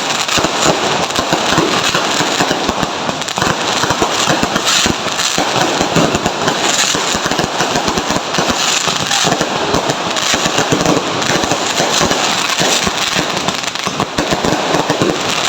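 Fireworks going off in a dense, continuous barrage: many rapid pops and crackles overlapping, with no break.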